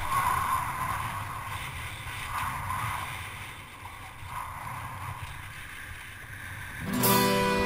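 Wind rushing over a helmet-mounted action camera and a kiteboard skimming over choppy water: a steady, uneven rush with low rumble. About seven seconds in, guitar music comes in.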